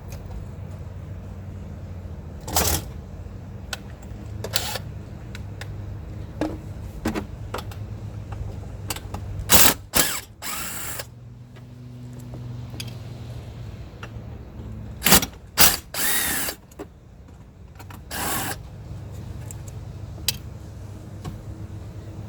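Power drill with a 5/16 socket running in several short bursts to back out the console armrest bolts, its motor whine changing pitch on the two longer runs, with clicks of the tool between.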